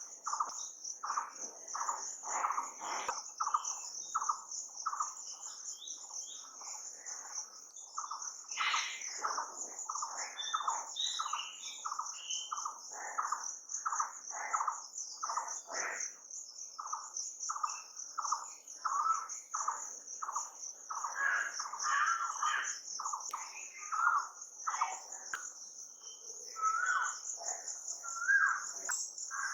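Nature soundscape: a steady, high insect trill, typical of crickets, runs throughout. Over it, birds call in short repeated notes at about two a second, which give way to more varied, sliding notes in the last third.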